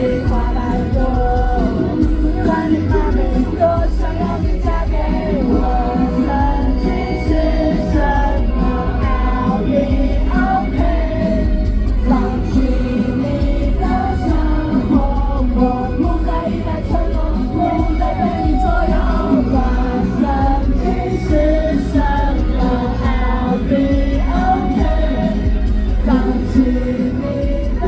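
Live amplified pop-rock music: a singer's voice over a full band with heavy bass, running steadily and loudly throughout.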